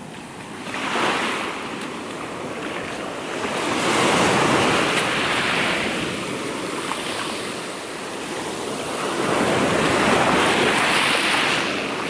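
Rough surf washing up a pebbly beach in rising and falling surges, with louder swells about a second in, around four to five seconds, and again near the end.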